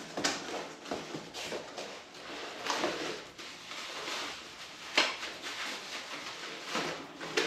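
Crinkling of plastic packaging and rustling of a cardboard box as a wheel spacer is unpacked, with a few sharper crackles.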